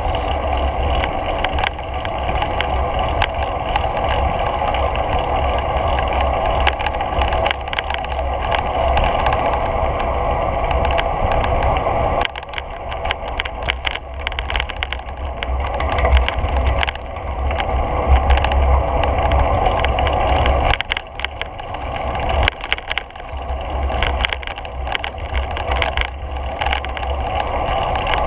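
Riding a bicycle along a paved path, recorded by a GoPro Hero3+ in its case: steady wind rumble on the microphone with tyre and frame noise and scattered rattles and clicks. The noise eases briefly twice, about 12 and 21 seconds in.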